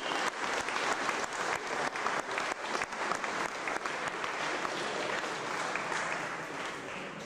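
Audience applauding a player called up for an award. The individual claps stand out at first, then blend together and die down near the end.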